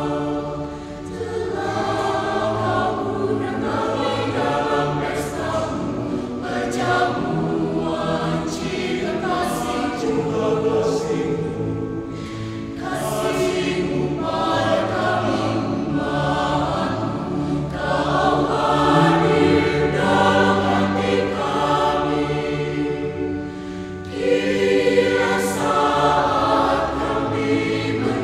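Mixed choir of children and adults singing, many voices holding chords together. The sound dips briefly about three-quarters through, then the full choir comes back in.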